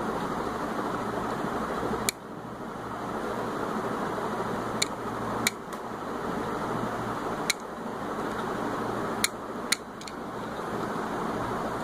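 Six sharp, separate clicks at irregular intervals from the small tactile push-buttons on a dsPIC development board being pressed, over a steady background hiss.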